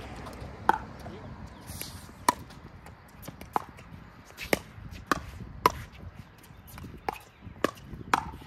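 Pickleball rally: about nine sharp pops of paddles striking the hollow plastic ball, along with its bounces on the hard court, coming faster, about two a second, in the exchanges at the net near the middle and end.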